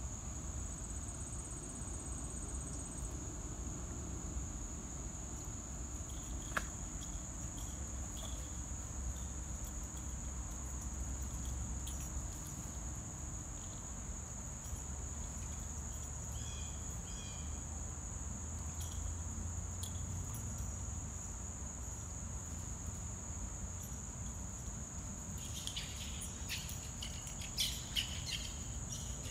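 Steady high-pitched insect chorus, a continuous even buzz, with a few short clicks and chirps near the end.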